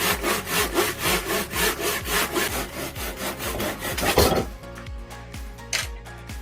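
Hand saw cutting through a square wooden post in a saw guide, with quick back-and-forth strokes that stop about four seconds in.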